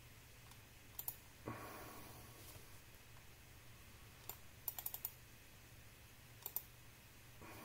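Computer mouse clicks: a double click about a second in, a single click and then a quick run of four clicks near the middle, and another double click a little later. A short soft rustle follows the first double click.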